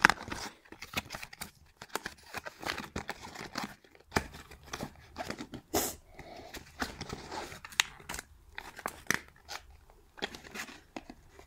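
A Beyblade toy's cardboard blister pack being torn open by hand: packaging tearing and crinkling in a long run of irregular crackles and snaps.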